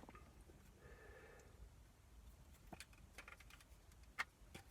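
Mostly quiet, with a few faint clicks from handling the plastic dome-light assembly and its bulb clips, and one sharper click about four seconds in.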